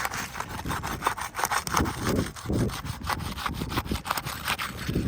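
Rapid, irregular scraping and rubbing as a tool works under a laminate asphalt shingle to pry out a tab.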